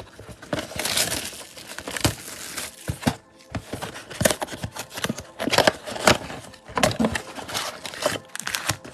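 Crinkling and tearing of the plastic wrap on a box of trading-card packs being opened, in quick, irregular crackles and snaps.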